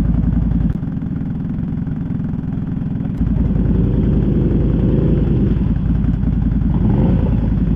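ATV engine running, quieter for a couple of seconds near the start, then revved up and back down around the middle.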